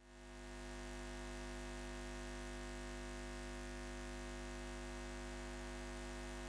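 Steady hum of several fixed tones, the end-screen's background sound, swelling in over the first half-second and cutting off suddenly at the end.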